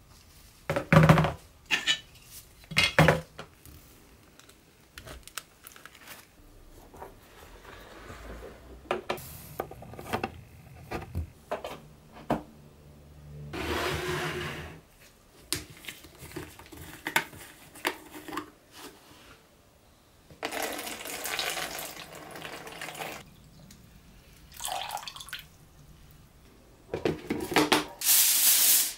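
Liquid, hydrogen peroxide, poured from a plastic jug into a plastic tub, among knocks and clicks of plastic parts being handled. A loud crinkling of aluminium foil starts near the end.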